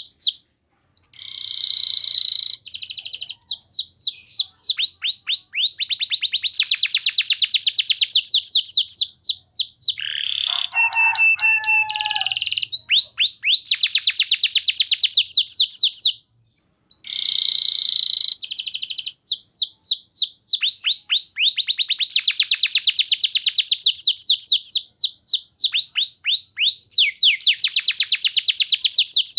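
Domestic canary singing a long song: rolling trills of rapid, falling notes, phrase after phrase, with short breaks near the start and about halfway. A few lower, held notes stand out about a third of the way in.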